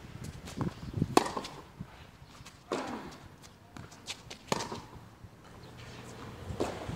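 Tennis rally on a hard court: sharp pops of the ball coming off the rackets and bouncing on the court, about five in all, two of them clearly louder than the rest.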